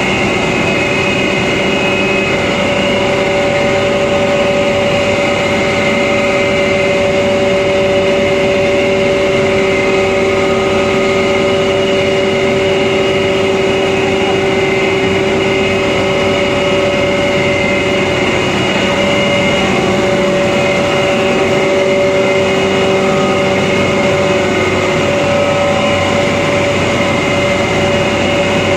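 Rice husk grinding machine running steadily under load: a loud, even machine hum with a constant whine that does not change.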